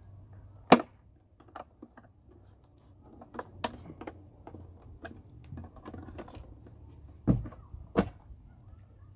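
Sharp clicks and knocks of a hard plastic 36 V lawnmower battery pack case being pressed together and handled, the loudest snap about a second in. Two heavier thumps come near the end as the pack is moved.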